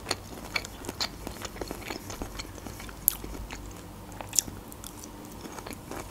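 Close-miked chewing of boiled broccoli: soft, wet mouth sounds with scattered small clicks, and a couple of sharper bites about halfway through as a piece of broccoli stem is bitten.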